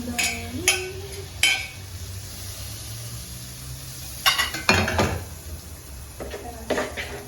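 A big metal spoon clinking and scraping against the dishes as pancake batter is mixed and spooned out. Three sharp clinks come in the first second and a half, then a louder cluster about four to five seconds in, and a few more near the end.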